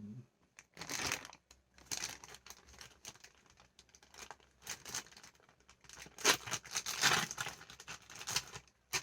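Plastic wrapper of a small fast-food toy being torn open and crinkled in the hands, in irregular rustling bursts, busiest about six to seven and a half seconds in.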